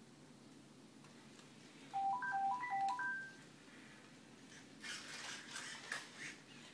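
Sony Aibo ERS-7 robot dog playing a short electronic beep melody through its speaker: quick tones stepping up and down in pitch, ending on a longer high note. About two seconds later comes a brief spell of mechanical whirring and clatter as the robot moves its head down with the bone.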